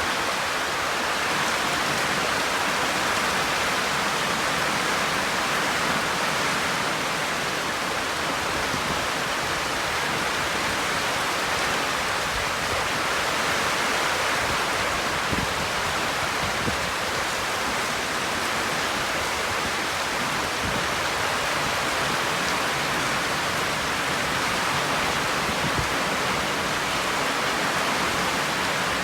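Heavy rain falling steadily during a thunderstorm, an even hiss with no letup.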